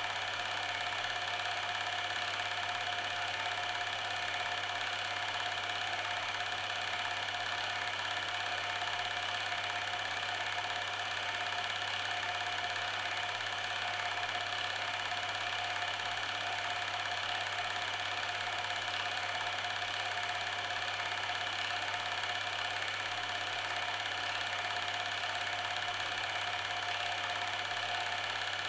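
A steady, unchanging mechanical whirring hum with a few constant tones, like a small motor running.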